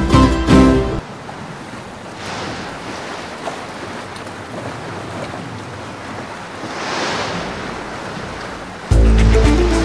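Sea waves washing, with wind, under the music break; the surf swells up twice, about two and seven seconds in. Guitar music stops about a second in and comes back loudly near the end.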